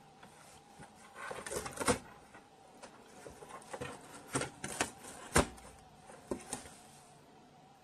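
A cat gnawing and pawing at the torn edge of a cardboard box, the cardboard crunching and tearing in irregular flurries of short crackles, with a lull near the end.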